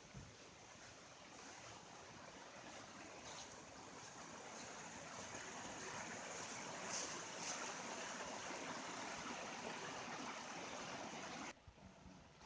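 Stream running over stones, a steady rush of water that grows louder over several seconds and then cuts off suddenly near the end.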